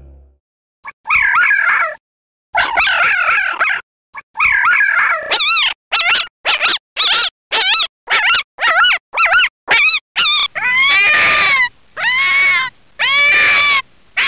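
Black-backed jackal calling: a fast series of short, high yelps rising and falling in pitch, then longer drawn-out yelping howls from about ten seconds in.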